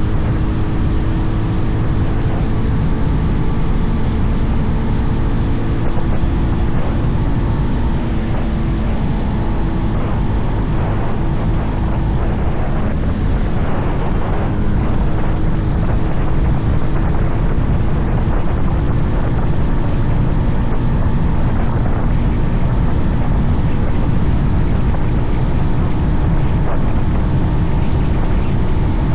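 Bajaj Pulsar 220F's 220 cc single-cylinder engine running while the bike is ridden, holding a mostly steady engine note that shifts briefly about halfway through.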